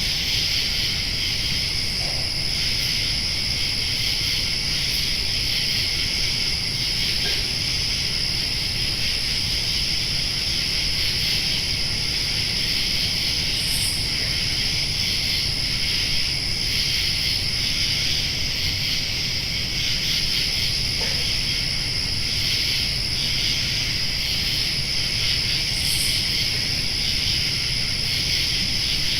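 Summer night ambience: a steady chorus of crickets and other insects trilling, with a faint low rumble underneath.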